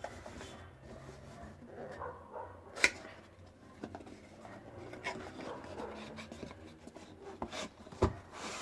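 Smartphone box being opened and handled: faint cardboard rubbing and rustling, with a sharp click about three seconds in and another near the end.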